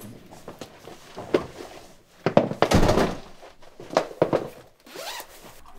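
Knocks and thuds of people coming in at a front door: the door closing, footsteps and things being put down. There are several separate knocks, and the loudest, longer one comes about halfway through.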